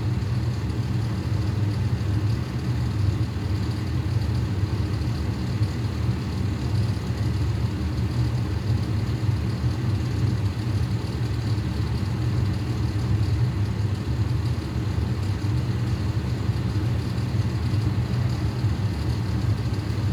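Fire truck engine idling: a steady, low, unchanging engine sound.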